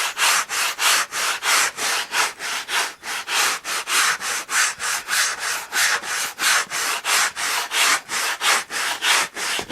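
150-grit sandpaper rubbed by hand over the wooden leading edge of a model airplane's horizontal stabilizer, rounding it off: quick, even back-and-forth strokes, about three a second.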